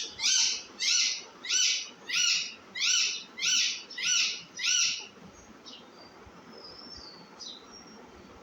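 A baby parrot calling over and over, a steady run of about nine loud, harsh calls roughly 0.6 s apart that stops about five seconds in, followed by a few faint chirps.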